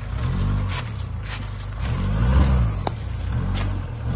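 Nissan Navara pickup's engine revving up and easing back down in short bursts, about three times, as the truck works over a rutted off-road track. A single sharp click is heard about three seconds in.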